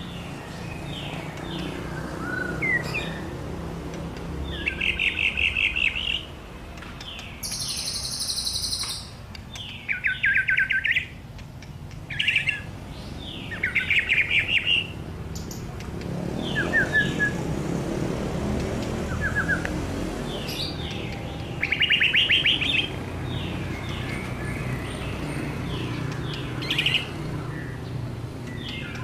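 White-rumped shama (murai batu) singing in repeated short phrases of fast trills and clear whistles, with one harsh, high buzzing note about eight seconds in.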